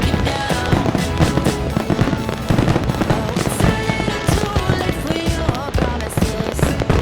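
Fireworks bursting in rapid succession, a continuous crackle of bangs, with loud music playing alongside.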